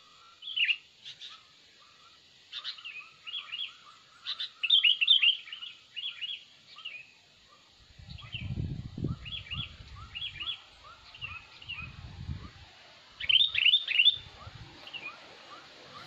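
Sooty-headed bulbuls (kutilang) calling: clusters of quick, bright falling chirps, loudest about five seconds in and again near the end, over a steady run of lower notes repeating about twice a second. A low rumble comes and goes around the middle.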